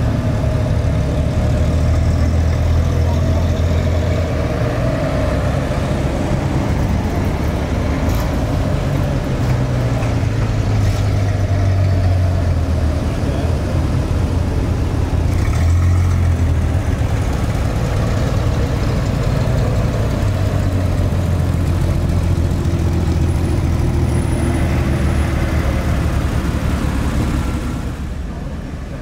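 Engines of WW2 military vehicles in a moving convoy, a steady low rumble that swells and eases several times as vehicles go by, dropping away near the end.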